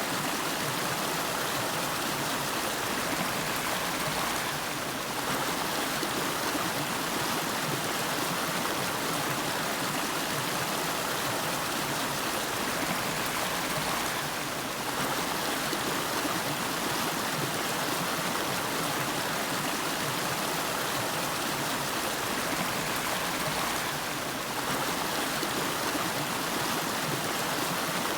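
River water flowing, a steady, dense rush of moving water that dips slightly in level about every ten seconds.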